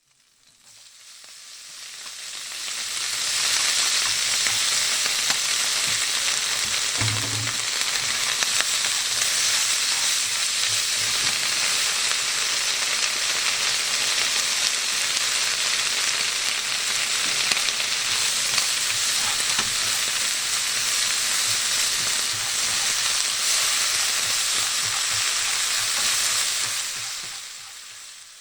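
Vegetables stir-frying in a hot pan: a steady sizzle with the small taps and scrapes of stirring, and one dull knock about seven seconds in. It fades in over the first few seconds and fades out near the end.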